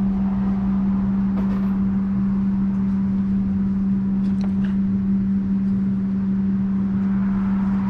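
A loud, steady, low machine hum with a rumble beneath it, and a few faint clicks of small parts being handled.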